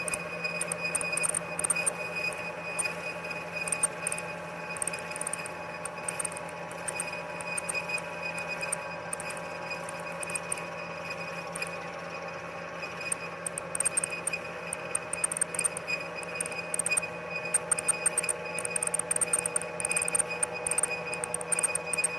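Machine tool running, a steady hum and whine of several fixed pitches, with irregular crackling ticks over it.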